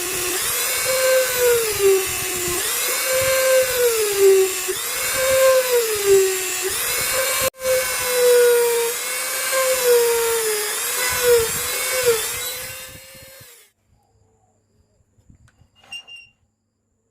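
A wood lathe's electric motor whines, its pitch dipping and recovering about once every second and a half as a cut loads it, with a momentary dropout about halfway. The whine fades out about 13 s in, and a few faint clicks follow.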